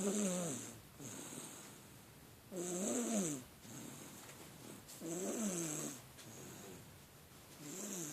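An 11-month-old baby snoring in sleep: four snores about two and a half seconds apart, each a short pitched drone that rises and falls, with softer breaths between them.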